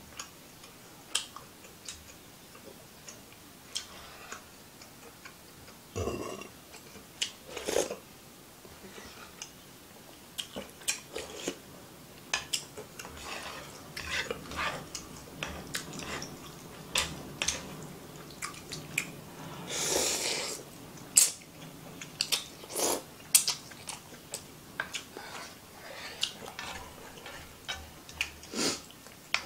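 Eating ramen from a frying pan: wooden chopsticks and a wooden spoon clicking and scraping against the pan, with scattered eating and mouth noises and a longer slurp about two-thirds of the way through.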